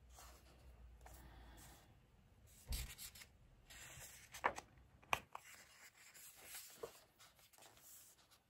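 Paper pages of a colouring book being handled and turned: soft rustling and rubbing of paper, with a dull bump about a third of the way in and a couple of sharp paper snaps around the middle.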